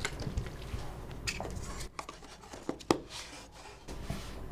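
Light clicks and taps of a small bottle and a paper coffee cup being handled, including the plastic lid pressed onto the cup. There are several separate clicks, the sharpest about three seconds in, followed by a brief soft rustle.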